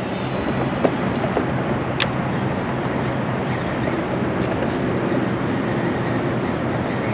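Steady engine drone with a constant low hum under a rushing noise, and a single sharp click about two seconds in.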